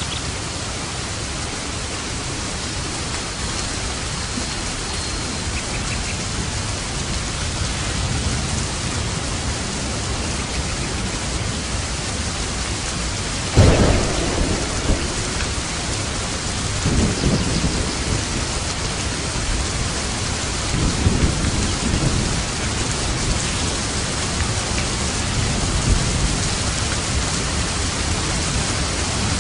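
Steady rain falling, with thunder: a sudden loud clap about halfway through, then several lower rolling rumbles afterwards.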